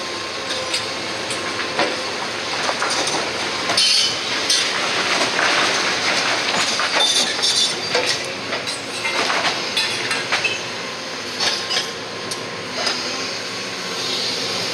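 Excavator demolishing a brick house: its engine runs steadily under a string of crashes and cracks of breaking masonry and falling rubble, busiest in the middle stretch.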